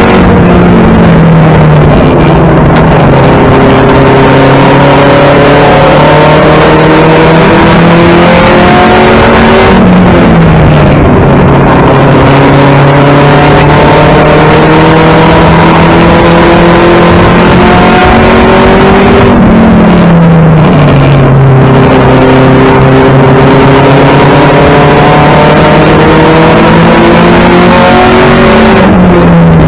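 1992 Toyota Celica GT race car's four-cylinder engine, very loud inside the stripped, caged cabin as it races. The pitch climbs slowly for several seconds along each straight, then drops sharply about every ten seconds as the car comes off the throttle for the turns.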